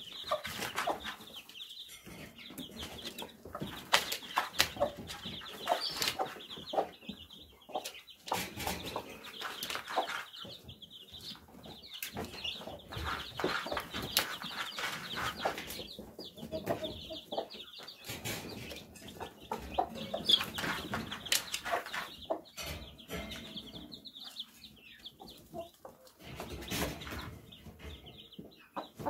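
A brood of young chicks peeping in quick, thin, high notes, pausing now and then, while the mother hen clucks low among them. Scattered sharp taps run through it.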